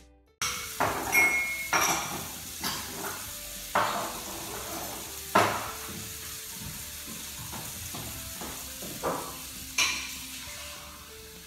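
Dishes and pots clattering and clinking in a kitchen being tidied: about six sharp knocks and clinks spread through the stretch.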